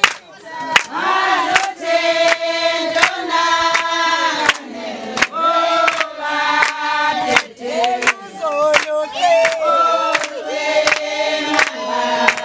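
A group of voices singing together in chorus, with sharp beats at a steady pace under the song.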